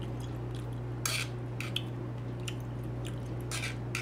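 Fork scraping and clicking against a sizzling plate a handful of times, the strongest scrapes about a second in and near the end, over a steady low hum.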